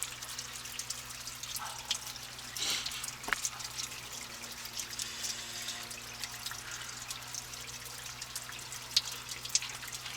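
Water dripping and trickling: a steady patter of scattered drops over a low, even hiss.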